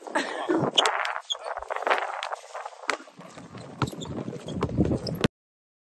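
Basketballs bouncing on an outdoor court: scattered, uneven knocks over a steady background noise. The sound cuts off suddenly about five seconds in.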